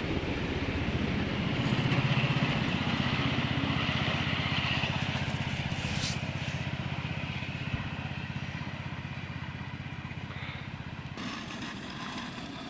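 A small train's engine running with a steady hum. It is loudest about two seconds in, then fades slowly.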